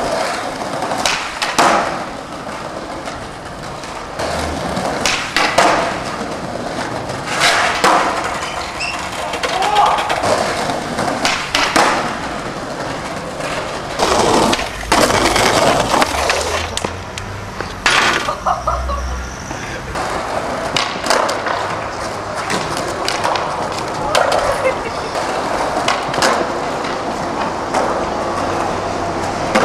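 Skateboard wheels rolling on paving, broken by many sharp clacks of the board being popped, landing and slapping down.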